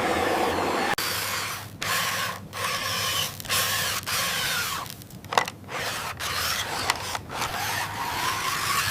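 Small electric motors of a miniature excavator whirring in short bursts, starting and stopping every second or so, with the pitch sliding up and down as they run.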